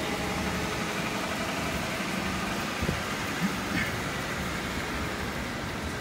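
Steady rushing noise of rain and wind, with a faint engine-like hum underneath and a few small knocks.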